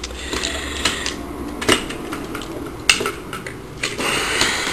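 Fansproject Warbot Defender transforming robot figure, made of plastic and metal parts, being handled and its joints moved, giving a light rattling and scraping with a few sharp clicks, two of them clearest in the middle.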